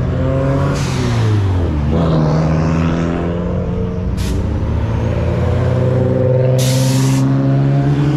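Car engines running at low revs as cars roll past, the engine pitch dropping about a second in and then climbing again. Sharp hisses of released air cut through about a second in and near four seconds, with a longer hiss near seven seconds.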